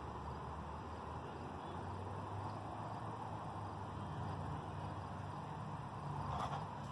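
Steady outdoor background noise: an even hiss with a low hum underneath, and a brief faint knock near the end.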